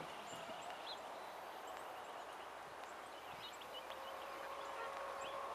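Quiet outdoor hen-yard ambience: a steady background hiss with faint, short, high chirps now and then, and a long, steady note that comes in about four seconds in.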